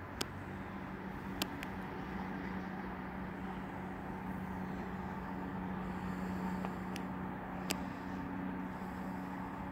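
Steady low hum of a distant engine, with three short sharp clicks: one just after the start, one about a second and a half in, and one near the end.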